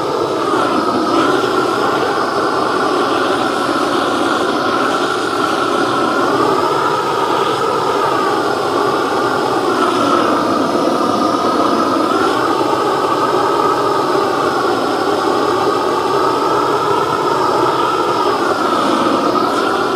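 Propane weed-burner torch burning steadily with a loud rushing sound, its tone dipping and rising several times as the flame is swept over a sanded wooden carving to char and seal the surface.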